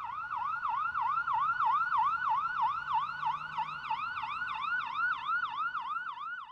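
Emergency vehicle siren in a fast yelp pattern, its pitch sweeping rapidly up and down about three times a second. It cuts off suddenly at the end.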